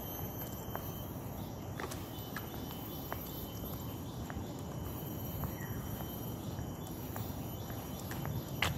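Footsteps on tiled paving at a steady walking pace, about one step every two-thirds of a second, over a steady high insect trill from the roadside trees and a constant low background rumble.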